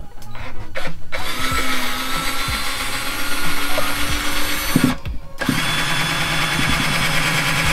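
Handheld power drill boring up into an RV ceiling. It runs steadily for about four seconds, stops briefly, then runs again. The bit is not getting through, which the driller takes for a metal beam he might have hit.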